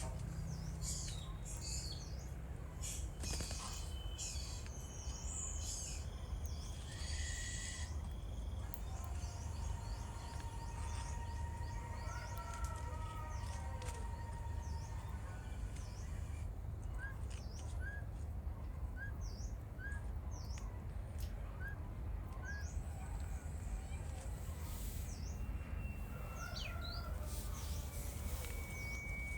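Wild birds chirping and calling, with many short, sharp high notes repeating over a steady low rumble of background noise.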